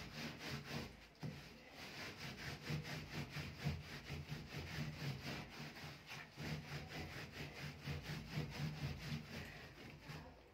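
A cloth scrubbing back and forth against the metal side panel of a gas stove, in quick, even, repeated strokes that stop near the end.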